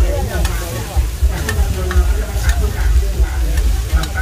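Shellfish omelette batter sizzling on a wide, flat frying pan while metal spatulas scrape and clink against the pan a few times, over a low rumble.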